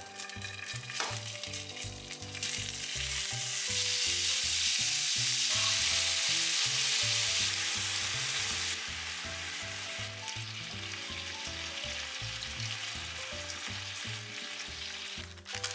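Thinly sliced beef sizzling in a hot frying pan as it is stir-fried with a spatula, along with grated ginger and garlic and a sweet soy-based seasoning. The sizzle swells a couple of seconds in, is loudest through the middle, and settles a little lower about nine seconds in.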